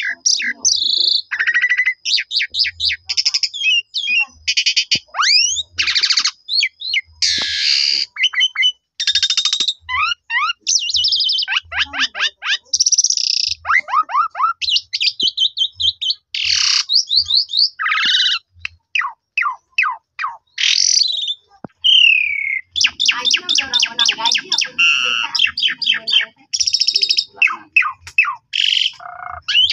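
Asian pied starling (jalak suren) singing a long, almost unbroken song of clear whistles, downward-sliding notes, harsh chatter and runs of fast repeated notes. It is pouring out its full repertoire ('bongkar isian'), including its learned and mimicked phrases.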